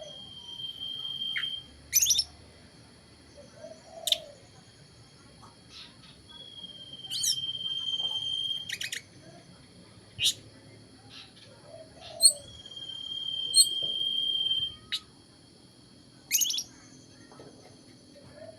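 Songbird singing in phrases that repeat about every six seconds: each phrase is one long, level whistle followed by several sharp chirps. A young bird in training, learning its song.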